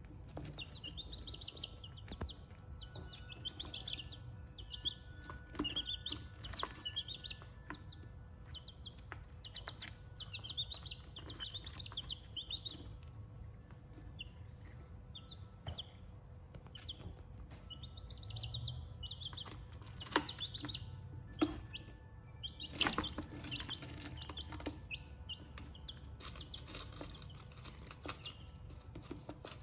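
Buff Orpington chicks peeping, a steady stream of short high chirps in quick runs. Scattered light taps and a brief rustling burst come about two-thirds of the way through.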